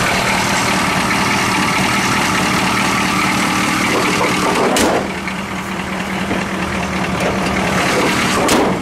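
1983 Chevy K20's 6.2 L diesel V8 idling steadily while still cold, its crankcase blow-by judged not too bad for a cold engine. Two sharp clicks, one about five seconds in and one near the end.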